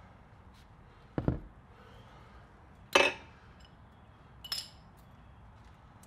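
Three brief metallic clinks and knocks of small brake hardware being handled and set down, the caliper's pad pin and shim: a duller knock about a second in, the loudest clink about three seconds in, and a lighter tick near the end.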